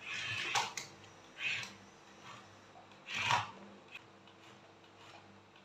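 Huina remote-control toy excavator's small electric motors and plastic gears whirring and grinding in short bursts as it crawls up a wooden plank, the loudest burst about three seconds in.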